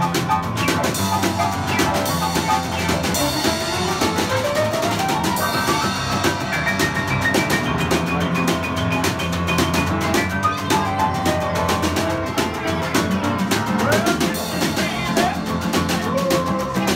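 A small acoustic band plays an uptempo instrumental: upright piano, plucked upright double bass, and a snare drum and cymbal keeping a steady beat.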